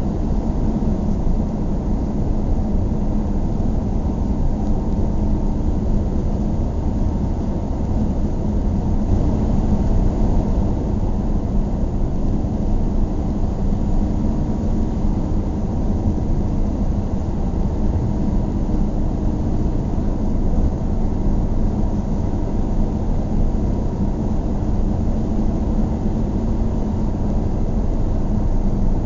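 A car driving steadily, its engine and road noise a low, even rumble with no sudden changes.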